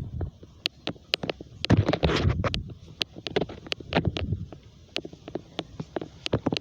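Strong wind buffeting the microphone in rumbling gusts, the strongest about two and four seconds in, with many sharp clicks and crackles throughout.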